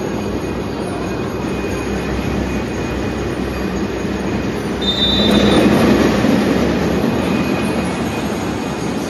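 Loud, steady din of a large crowd in a big covered court. About five seconds in there is a short high whistle, then the noise swells for a second or two and settles again.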